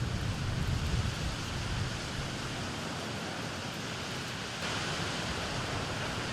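Strong wind buffeting the microphone over a steady rushing noise, with low gusty thumps in the first seconds. About four and a half seconds in, the sound changes abruptly to a brighter, steadier hiss.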